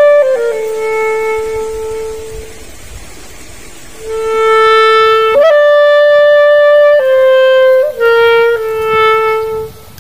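Background music: a slow melody of long held notes on a solo wind instrument, dropping to a lull briefly before picking up again about four seconds in.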